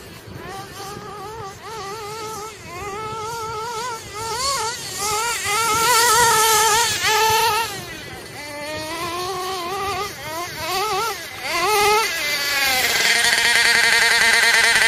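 GS Racing Storm Evo nitro RC buggy's 3.5 cc (.21) two-stroke glow engine running on 16% nitro fuel, its high-pitched note rising and falling with the throttle as the buggy drives. Several quick revs come in the second half, and it is loudest near the end as the buggy comes close.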